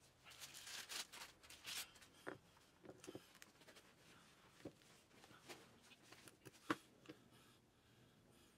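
Quiet handling noises from gloved hands working a tapered wheel bearing into a grease-filled bearing packing tool: rustling and crinkling in the first two seconds, then scattered light clicks and taps, the sharpest about two-thirds of the way through.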